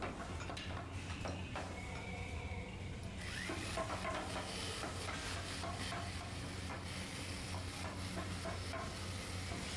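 A few light chisel taps on wood, then about three seconds in a handheld electric drill starts and runs steadily, its bit grinding into the wooden ring.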